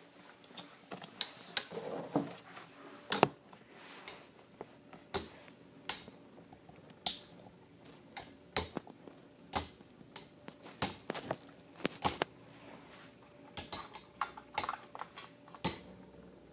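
Two spinning Beyblade tops, Thermal Pisces and Lightning L-Drago, battling in a plastic stadium: their metal wheels strike each other in sharp, irregular clacks, one to three a second, over a faint steady hum.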